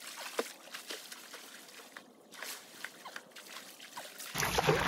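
Pool water splashing and sloshing with a swimmer's strokes, with many small drips and laps against the water surface, getting much louder near the end.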